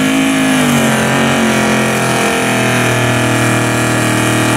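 1970s GMC pickup's engine running hard at high revs as the truck ploughs through deep bog mud; the pitch peaks just after the start, sags a little, then holds steady.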